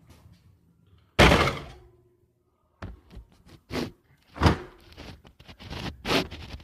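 A loud thud about a second in, then a series of shorter knocks and clatters: plastic casing and parts of a portable air conditioner being handled and fitted during a repair.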